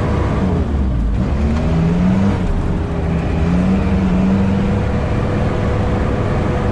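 Sherp amphibious ATV's diesel engine running steadily under load as it drives over snow-covered ice, heard from inside the cab. Its pitch wavers, rising a little about two seconds in.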